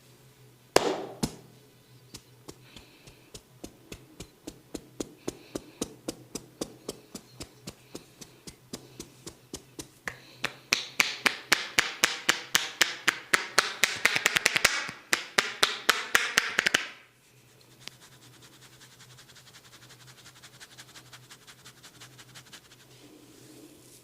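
Percussive hand massage: a sharp slap about a second in, then a steady beat of hand taps, about two a second, that quickens to about four a second and grows louder before stopping suddenly, followed by faint, rapid light tapping.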